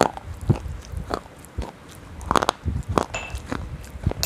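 Close-miked biting and crunching of a hard food in the mouth, right against a lavalier microphone: a string of irregular sharp crunches and clicks.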